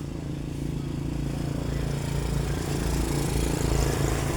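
An engine running steadily and growing louder, with a rising hiss of noise over its low hum.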